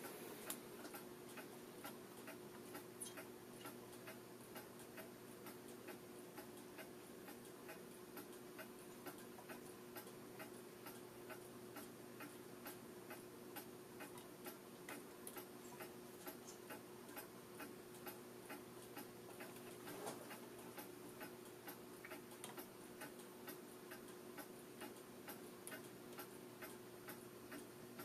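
Faint, regular ticking at about two ticks a second, over a steady low hum.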